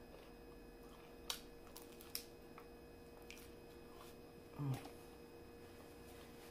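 Quiet close-up eating sounds of a soft taco being bitten and chewed with the mouth closed: soft wet squishing, two sharp mouth clicks about a second and a half and two seconds in, and a brief closed-mouth hum near the end.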